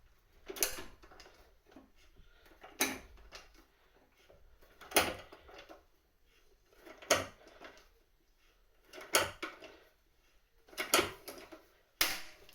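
Hand rivet gun squeezed again and again to set a pop rivet, with a sharp metallic click on each stroke, about one every two seconds.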